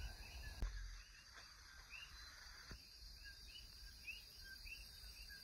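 Faint night chorus of Puerto Rican coquí frogs over a steady high insect hum: short rising whistled calls repeating about twice a second. A soft knock sounds about a second in and again near the middle.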